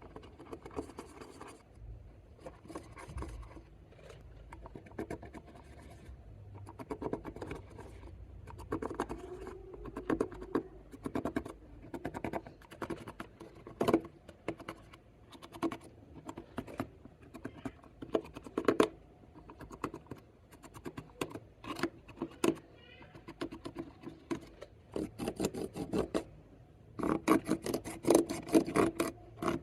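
Clear slime being squished, folded and stretched by hand: irregular runs of small clicks and pops, densest and loudest near the end.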